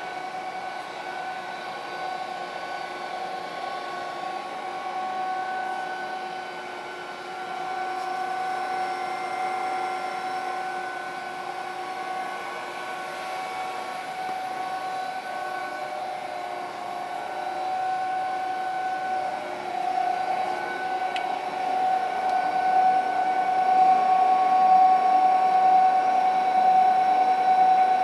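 Paul O. Abbe RB-15 ribbon blender running empty: its 7.5 hp SEW-Eurodrive gear motor drives the double-spiral ribbon with a steady mechanical whine on a few held pitches. The whine grows louder toward the end.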